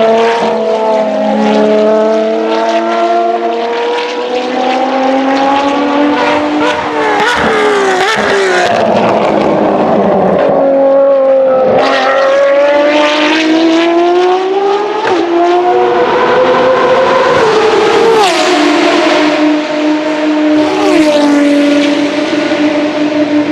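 Ferrari FXX-K V12 engines revving and passing, several at once. Their pitch climbs and drops with gear changes, with sudden steps, and near the end one engine holds a steady note.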